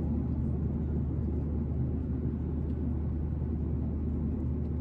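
Steady low rumble of a Boeing 737-800's CFM56 jet engines and airflow, heard inside the passenger cabin, holding an even level throughout.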